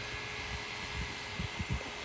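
Honda Accord engine running with a steady hum and a few low thumps about a second and a half in; the owner takes the top-end knock for a sign the engine is low on oil.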